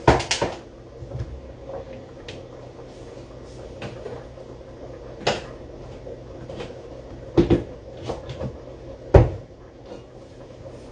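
Wooden kitchen cupboard door opening and closing, with things being moved about inside the cupboard: a few sharp separate knocks and bangs, the loudest near the start and about nine seconds in.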